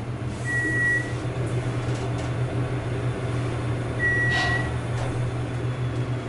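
Steady low hum of a Dover geared traction elevator in motion, heard inside the cab. A short microwave-like beep sounds twice, about three and a half seconds apart, as the car passes floors.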